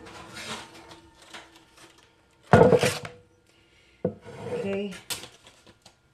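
Kitchenware knocking on a wooden board: a loud knock about two and a half seconds in, then a black cast-iron pan set down on the board about four seconds in, with a sharp click a second later.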